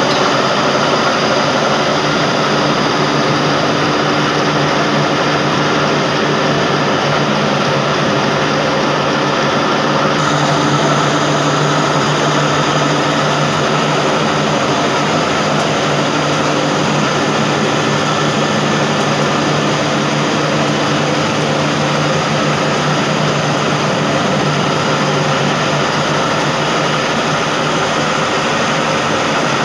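Automatic atta (wheat flour) mill plant running: a loud, steady machine din with a constant low hum, unchanging throughout.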